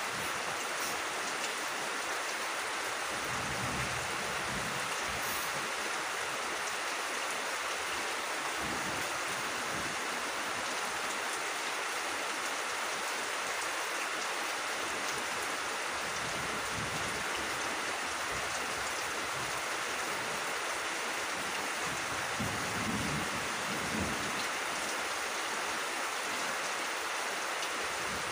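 Steady rainfall, an even hiss of rain on leaves and grass.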